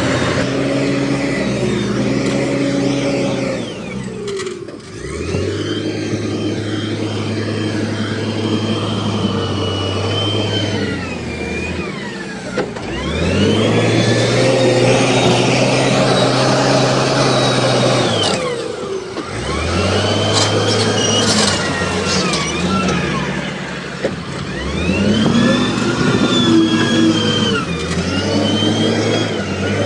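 Heavy earthmoving machine's engine revving up, holding and dropping back again and again, about every six seconds, with a high whine that rises and falls with it.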